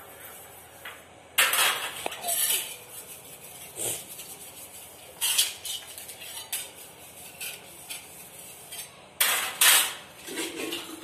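Stainless-steel pots, plates and a ladle clattering and clinking as they are washed by hand, with rubbing and scraping between the knocks. Several sharp clatters come at irregular intervals, the loudest about a second and a half in and again near the end.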